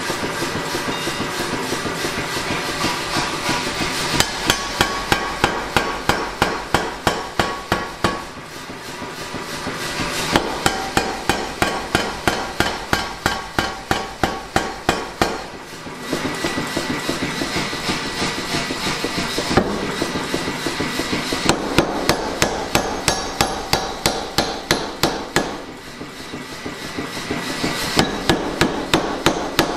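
Power hammer striking a glowing steel bar held in tongs, forging stock for a stake anvil. The blows come in fast runs of about four a second, broken by short pauses, and the machine runs steadily between runs.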